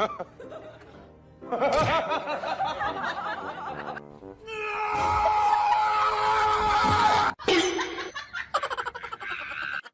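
Music with people laughing over it, in short changing stretches.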